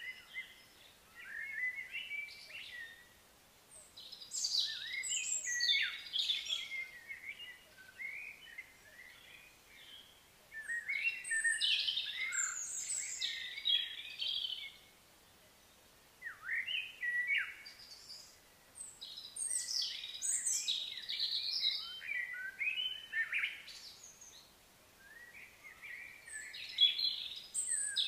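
Songbirds singing: bouts of quick, high chirping phrases a few seconds long, separated by short quiet gaps.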